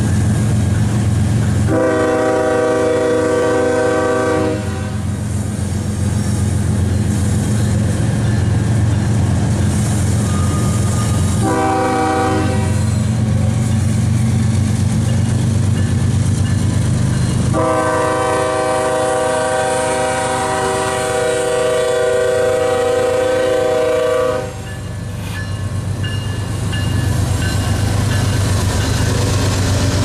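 Air horn of an approaching GE ES44AC diesel locomotive sounding a chord of several tones in three blasts: a long one, a short one, then a long one of about seven seconds. Under the horn runs the steady low rumble of the locomotives' diesel engines.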